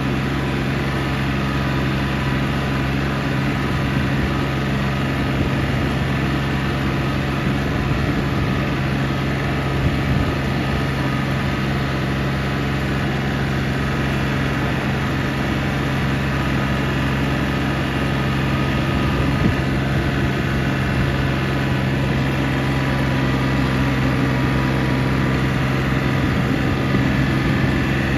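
Compact tractor's engine running at a steady working speed as its front loader bucket pushes snow, a constant low drone.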